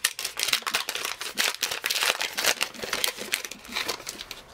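Baseball trading cards being thumbed one by one off a stack: a quick, uneven run of light flicks and slides of card stock on card stock.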